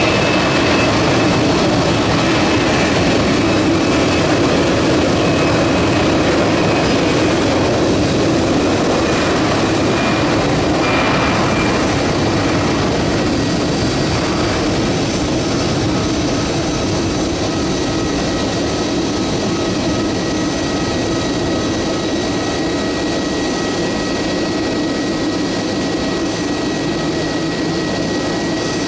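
Airbus A320 jet engines running at power as the airliner moves along the runway: a steady, loud rushing noise with thin whining tones over it, slowly fading.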